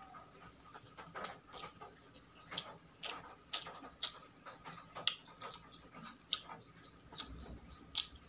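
Close-miked eating sounds: chewing with sharp, wet mouth clicks and smacks coming irregularly, about twice a second.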